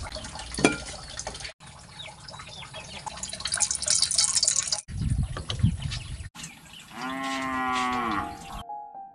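Kitchen sounds: a sharp metal clank, then cooking oil poured into a steel wok. A cow then moos once, one long call that drops in pitch at its end.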